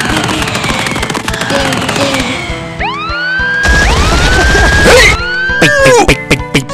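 Cartoon sound effects over music: whistle-like sliding tones that rise and then hold, a loud crash-like noisy burst about four seconds in, then falling sliding tones and a quick run of knocks near the end.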